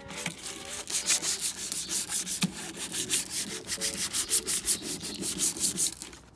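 Hand sanding of a car's black painted body panel with 240-grit sandpaper on a sanding block: fast, even back-and-forth rasping strokes, scuffing the old paint before respraying. The strokes start about a second in.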